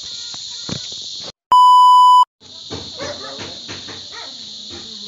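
A loud, steady electronic bleep tone, edited in for just under a second about a second and a half in, with the sound cut out just before and after it. Around it, crickets or other insects chirr steadily.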